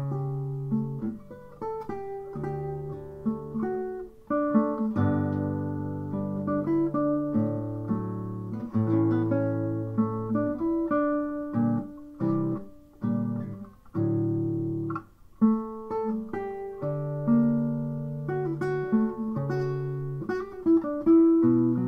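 Solo classical guitar played at a slow pace, with plucked melody notes ringing out over held bass notes and brief pauses between phrases.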